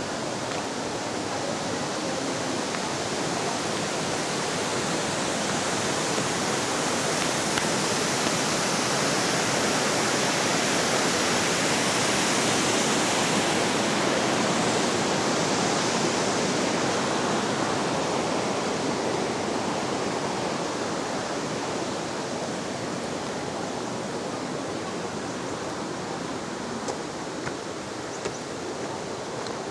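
Steady rushing of water from a river or waterfall, growing louder through the middle and easing a little later, with a few faint clicks near the end.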